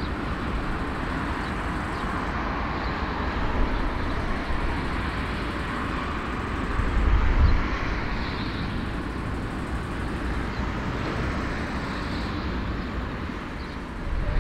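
Airliner jet engines running at an airport: a steady rumble and hiss, with a louder low buffet of wind on the microphone about seven seconds in.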